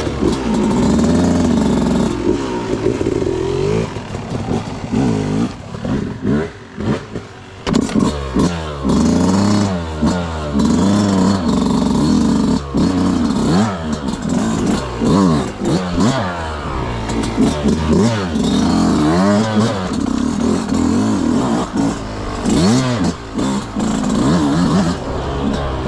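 Yamaha YZ125X two-stroke dirt bike engine revving up and down over and over under the rider's throttle on a twisty trail, easing off briefly about a quarter of the way through before climbing again.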